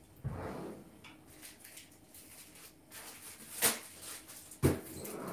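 Kitchen handling noises from items being moved about: a short rustle near the start, then two sharp knocks about a second apart near the end.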